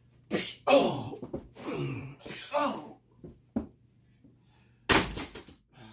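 A man and a boy play-fighting: short shouts and grunts without words, a single sharp knock about three and a half seconds in, then a louder clattering thud about five seconds in as they tumble on the floor.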